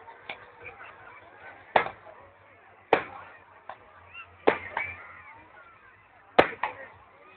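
Aerial fireworks shells bursting: four loud sharp bangs about a second or two apart, with several fainter pops between them, picked up by a phone's microphone.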